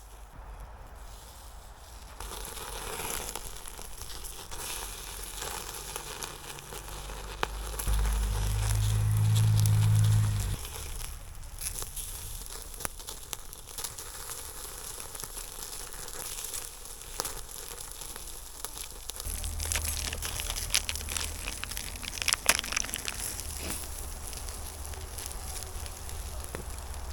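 Firewood fire crackling as it catches, with sharp pops scattered throughout. A low rumble comes in about eight seconds in for a couple of seconds, and again from about nineteen seconds on.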